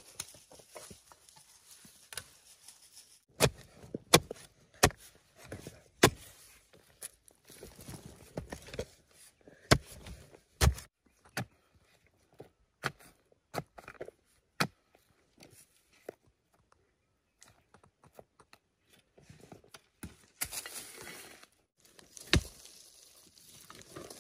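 Hand hoe digging into clay soil: irregular dull strikes and thuds of the blade biting the earth, with soil crumbling and rustling between blows.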